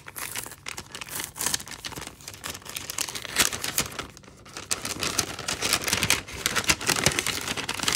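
Paper envelope crinkling and rustling in the hands as its round seal sticker is peeled off and the envelope is pulled open, a steady run of short crackles with a little paper tearing.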